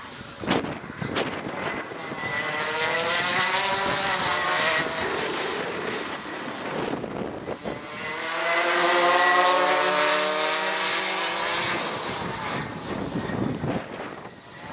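A pack of IAME X30 125cc two-stroke racing kart engines running at high revs as the karts go by, in two loud passes, one peaking about three to four seconds in and a louder one about nine to ten seconds in, the engine note climbing in pitch as they accelerate.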